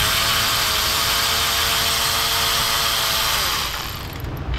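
Power ratchet spinning out one of the oil pan perimeter bolts on a 6.2 L V8. It runs steadily for about three and a half seconds with a whine and a hiss, then its pitch sags slightly as it stops. This is the bolt removal that lets the pan drop for a new gasket to cure an engine oil leak.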